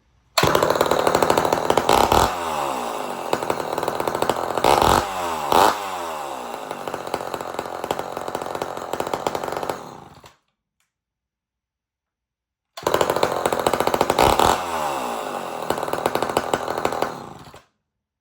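Homelite Super XL12 two-stroke chainsaw with a straight-stack muffler running loud. It is blipped up several times and falls back toward idle after each blip. It cuts off abruptly twice, with a gap of silence between the two runs.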